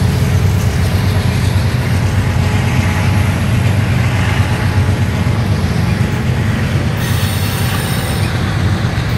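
A freight train's covered hopper cars rolling past close by: a steady loud rumble of steel wheels on the rails.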